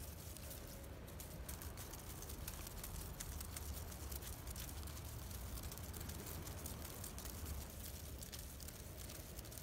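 A large dry leaf on a stick scraping and rustling over rough pavement in small crackly rattles, over a steady low rumble.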